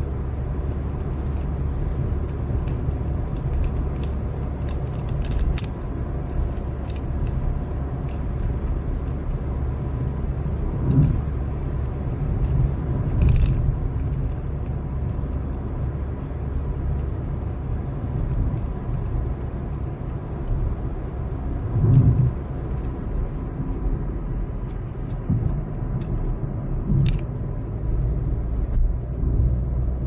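Road noise inside a moving car's cabin: a steady low rumble of engine and tyres, with a few brief thumps and light clicking rattles.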